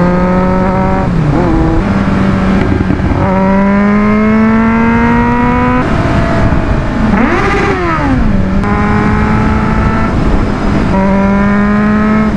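KTM LC4 640's single-cylinder four-stroke engine pulling through the gears: its pitch climbs steadily, then drops back at each shift, at about one, three and six seconds in. Around seven seconds in the pitch swoops up and falls back before the engine pulls steadily again.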